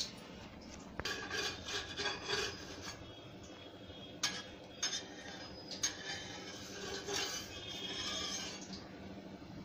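Rubbing and scraping against an iron tawa as a rice-flour chapati is worked on it. The scraping comes in two spells, and a few sharp clicks of utensils against the pan fall in the middle.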